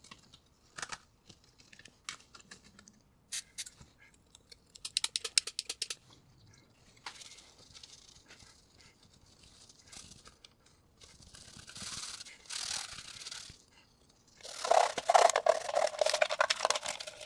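Small parts of a transistor radio being handled and fitted back together: scattered light clicks and scrapes, a quick run of about ten sharp clicks halfway through, and soft scraping. A louder, steady rushing sound starts near the end.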